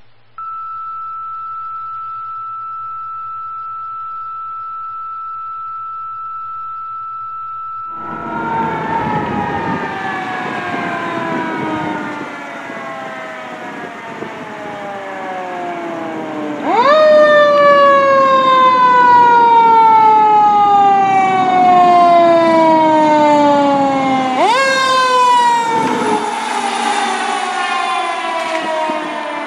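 A steady high tone for about eight seconds, then a fire engine's mechanical siren winds up and slowly falls in pitch. It is wound up again twice, at about 17 and about 25 seconds in, each time sliding back down.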